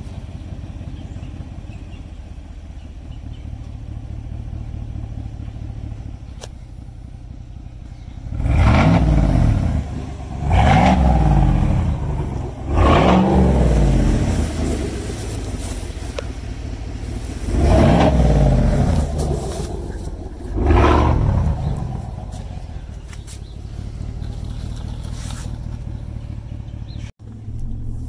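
Exhaust of a 2020 Chevy Silverado Trail Boss, straight-piped with the muffler and flapper valve deleted, idling after a cold start, then revved five times, each blip rising and falling over a second or two, before settling back to idle.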